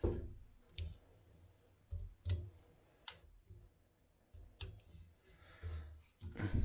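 Scattered sharp clicks and light knocks as the metal and plastic arm and mounting plate of a Zhiyun Weebill S gimbal are handled and fitted, with soft handling rumble between them.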